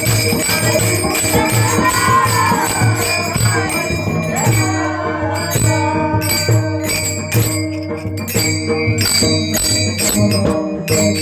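Devotional music: jingling percussion strikes in a steady beat over sustained tones, with a singing voice briefly around two seconds in.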